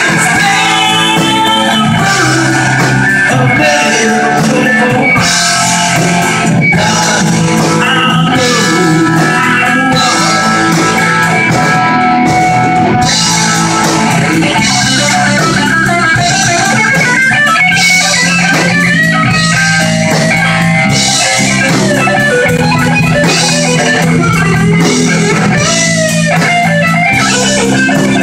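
Live rock band playing loudly: guitar-led, over a steady drum beat with recurring cymbal crashes.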